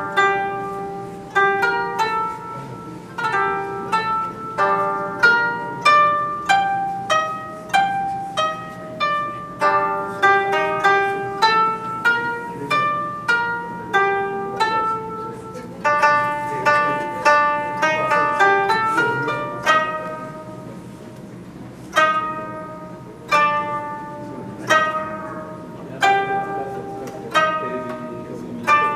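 Solo koto, the Japanese zither, played by plucking: single notes ring and fade, with a run of quicker notes in the middle, then slower, spaced notes near the end.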